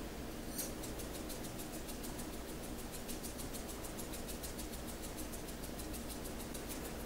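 Glass seasoning shaker shaken steadily over a pan of chopped vegetables: a rapid, even run of faint, crisp ticks.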